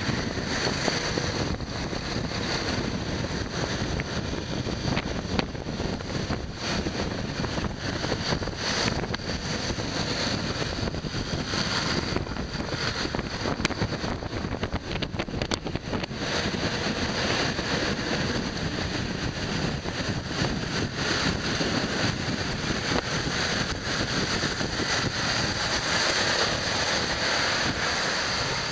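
Steady wind noise buffeting the microphone of a camera on a moving motor scooter, with the scooter's engine and road traffic underneath.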